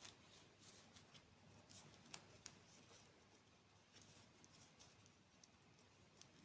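Faint crackly clicks and crinkles of food being eaten or handled close to the microphone, with two sharper clicks a little over two seconds in.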